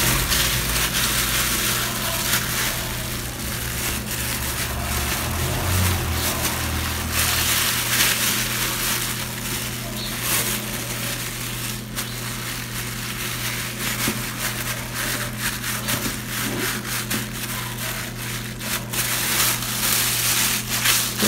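A thin plastic supermarket bag crinkling and rustling under the hands as a sushi roll is rolled and pressed inside it and the bag is then pulled open, with a steady low hum beneath.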